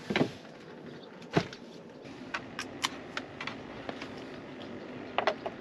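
Handling noises in a van's cabin: a cloth bag is set down with a couple of knocks, a louder knock follows about a second later, then scattered light clicks and taps as a charging cable is handled at a portable power station.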